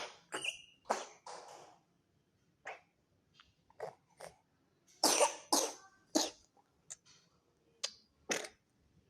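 Four-month-old baby coughing repeatedly, about a dozen short coughs in loose clusters, the loudest run a little past halfway. It is a cough that struggles to bring up phlegm, which the uploader puts down to exposure to cigarette smoke.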